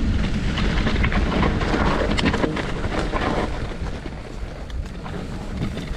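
Wind rumbling on the microphone over the rattle and crunch of a bike riding across rough, stony ground, with many small knocks and clicks. It eases a little after about four seconds.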